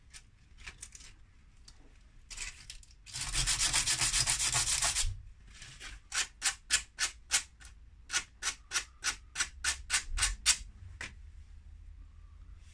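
Small metal pepper mill grinding wheel rubbed on sandpaper to take off the burrs left by filing: a few short scrapes, a steady scrubbing for about two seconds, then a run of quick back-and-forth strokes, about four a second, that stops near the end.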